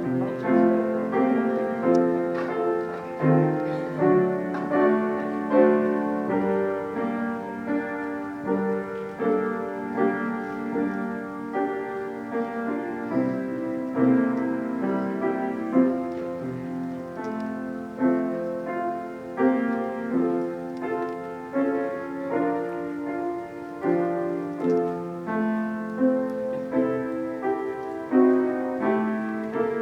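Piano playing a steady flow of chords and melody notes, each note struck and then fading.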